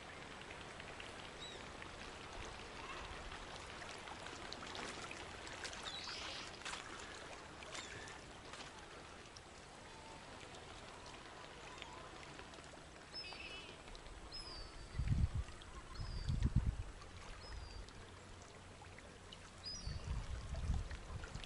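Lakeshore ambience: a steady hiss of wind and water, with a few short, high bird calls from a flock of waterbirds on the lake in the second half. Low thuds come twice, about 15 seconds in and again near the end.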